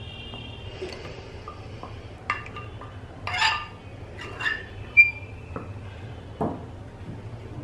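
A metal spoon clinking and scraping against bowls as dry rice flour is spooned into a glass bowl, about six clinks, the loudest ringing briefly about five seconds in, over a steady low hum.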